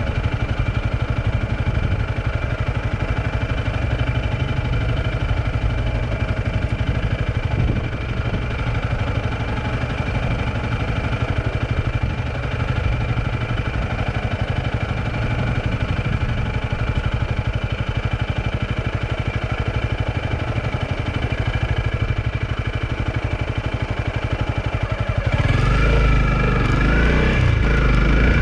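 A vehicle engine running steadily on the road, with a heavy low rumble. About 25 seconds in the rumble gets louder and deeper, and the engine pitch starts to waver.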